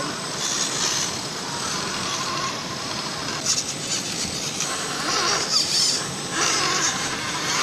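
Small electric radio-controlled scale off-road truck driving over rough ground: motor and gear whine with tyres scrabbling over dirt and stones, coming in several short surges.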